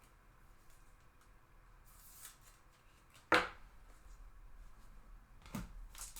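Trading cards handled and shuffled, with faint rustling and a sharp tap a little past halfway, then a softer tap near the end.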